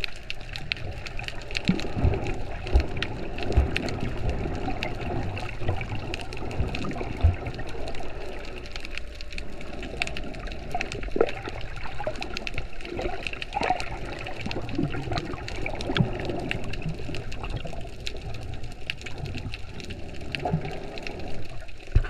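Water noise heard through an underwater camera: a steady muffled wash and sloshing, with a dense crackle of small clicks throughout and a few low thumps, most of them in the first several seconds.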